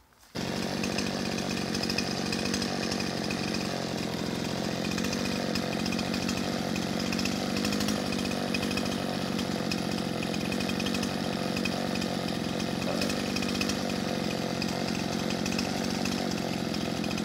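Poulan Pro two-stroke gas chainsaw catching on a pull of the starter cord just after the start. It then runs steadily at idle, resting on the ground.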